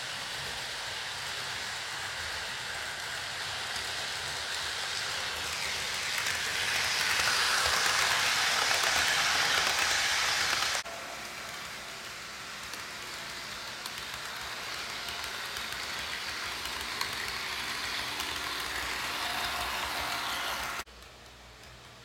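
HO scale model train running on the track: a steady rolling whir of the small motor and wheels on the rails that swells as the train passes close, then breaks off abruptly about halfway through and again near the end.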